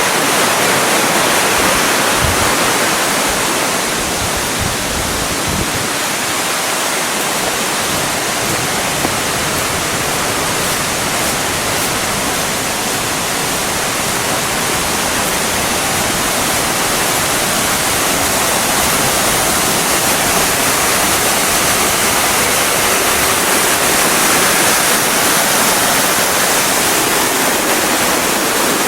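Steady, loud rush of flowing water from a mountain stream or waterfall, an even unbroken roar with no changes.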